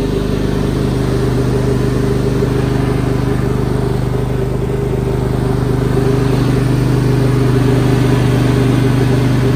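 Sears Craftsman riding lawn mower engine running at a steady speed as the mower drives along, getting slightly louder in the second half.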